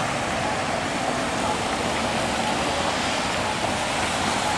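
Road traffic passing, a steady hiss of car tyres on wet pavement.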